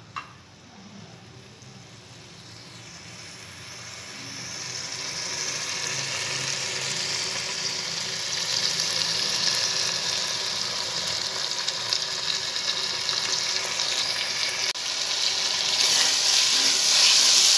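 Marinated chicken pieces sizzling in hot oil in a metal pot. The sizzle swells over the first few seconds and grows louder near the end, when a wooden spoon stirs the pieces.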